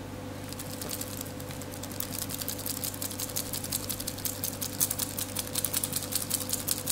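A bristle basting brush dabbing and scrubbing paprika into a raw turkey breast roast in its string netting, in a metal bowl: a fast run of short scratchy strokes that starts about half a second in and grows slightly louder, over a steady low hum.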